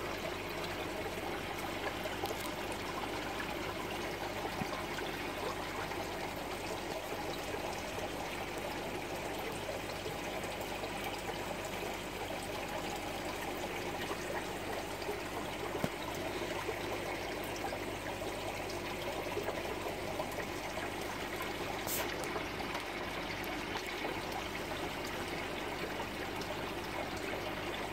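Aquarium water trickling steadily from the tank's filter circulation, with a faint steady hum underneath and a single brief click about 22 seconds in.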